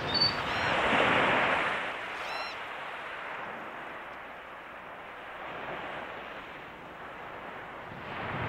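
Steady rushing outdoor noise that swells to a louder whoosh about a second in, with a couple of faint high chirps.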